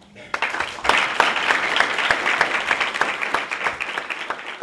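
Audience applauding, swelling within the first second and slowly fading toward the end.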